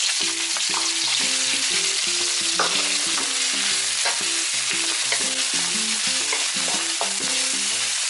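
Pounded chili-garlic paste sizzling in hot oil in an aluminium wok, fried until fragrant while a wooden spatula stirs it, with sharp knocks and scrapes of the spatula against the pan now and then.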